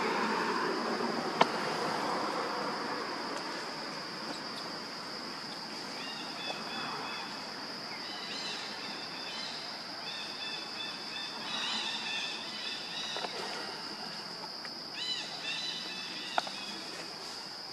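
Steady high-pitched insect drone, with short high chirping calls repeating in clusters from about six seconds in. Two sharp snaps or knocks stand out, one near the start and one near the end.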